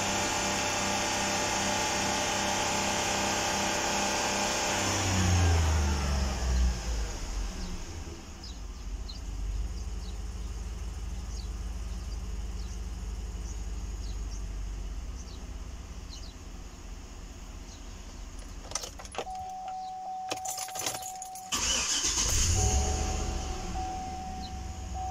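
2014 Chevrolet Tahoe V8 held at about 4,000 rpm, then falling back to a steady idle about five seconds in. Near the end the engine stops and is restarted, with a steady warning chime sounding.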